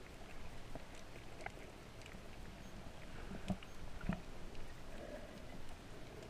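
Underwater sound picked up by a submerged camera: a low steady rumble of moving water with scattered faint clicks, and two dull knocks about three and a half and four seconds in.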